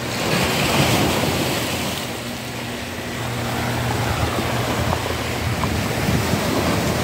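Rough sea waves washing against a rocky shore, swelling and easing, with wind on the microphone. A low steady hum runs underneath in the middle stretch.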